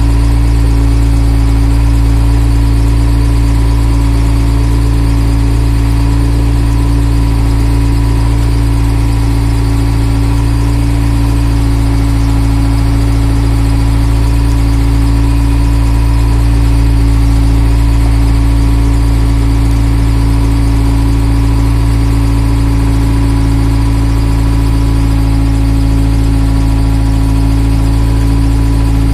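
Backhoe loader's diesel engine running steadily as the machine drives along, heard from the cab, with a constant whine riding over the engine note.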